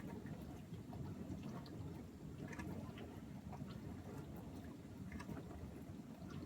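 Beko DFN28R30X dishwasher washing: a steady low hum of the wash pump with water spraying and splashing inside the tub, many small spatters and drips. It is still washing while its countdown is stuck on 1 minute remaining, the fault in which the program never ends.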